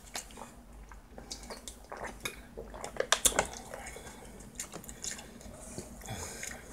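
A plastic water bottle being handled: the cap twisted open, faint crinkles and clicks of the plastic, then the bottle set down on the table. The clicks come scattered, a few louder ones around the middle.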